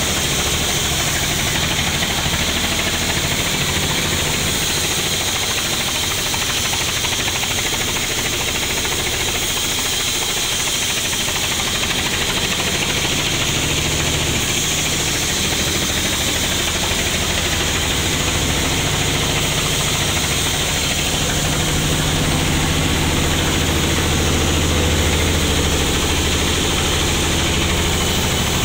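Large sawmill band saw and its drive machinery running steadily, a continuous low engine-like rumble with a hiss over it.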